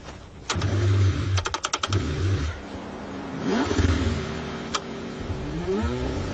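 Car engine cranked in the cold, struggling to start. It comes as several short, uneven bursts of cranking, with a cluster of sharp clicks and brief rising whines.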